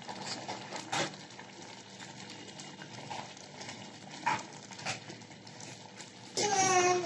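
A steel ladle stirring thick curry gravy in a pan: soft scrapes with a few light knocks of the ladle against the pan, about a second in and twice more later. A voice starts near the end.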